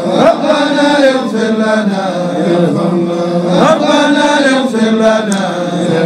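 A man's voice chanting a poem in long, held melodic lines, sliding between notes.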